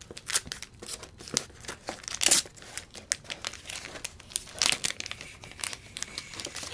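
Wax-paper wrapper of a 1989 Donruss baseball card pack crinkling and tearing as it is opened by hand, in irregular crackles with the loudest rip a little over two seconds in.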